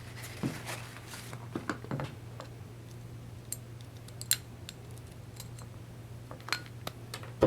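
Scattered small metallic clicks and taps of ratchet parts being handled during a teardown, the sharpest about four seconds in, over a steady low hum.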